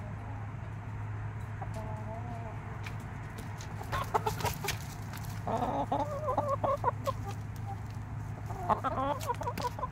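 Chickens clucking close up in several short bouts, the loudest from about five and a half to seven seconds in and again near the end, with scattered sharp clicks, over a steady low hum.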